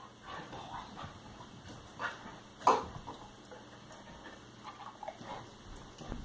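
A dog whining and whimpering in short, soft bursts, with one short, sharp yip or bark about two and a half seconds in.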